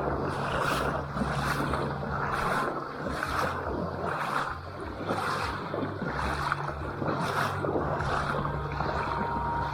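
Kayak moving on the river: splashing paddle strokes about once a second over a steady wash of water and wind, with a steady low hum underneath.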